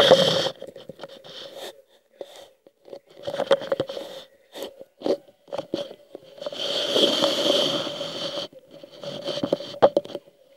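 Irregular rustling and crunching with scattered clicks, including a longer stretch of rustle about two-thirds of the way through, over a faint steady hum.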